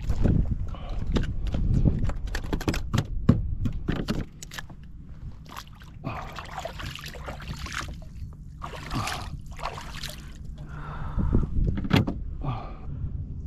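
Water sloshing and splashing around a fishing kayak, with a string of sharp knocks and clicks and wind rumbling on the microphone over the first few seconds.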